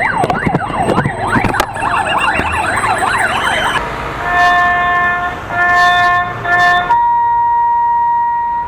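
A siren wails rapidly up and down, mixed with scattered clicks and knocks. Then, after a cut, come a few short steady pitched tones with gaps and one long held tone to the end.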